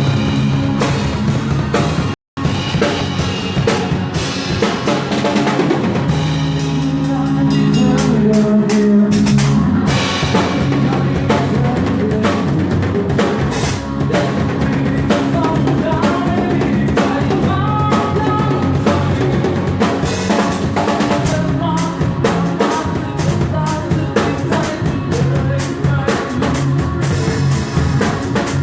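Live rock band playing with a loud drum kit, including bass drum and rim hits, and some singing. The sound cuts out completely for a moment about two seconds in.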